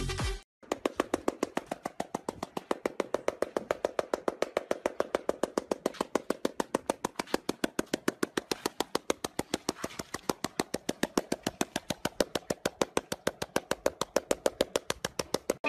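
A fast, very even run of sharp ticks, about seven a second, starting about half a second in.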